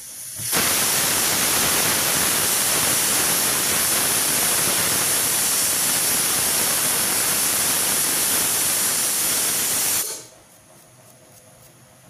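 Pressure cooker whistling: steam forcing up the weight on the lid vent in a loud, steady hiss. It starts about half a second in and cuts off sharply after about nine and a half seconds. The cooker is at full pressure.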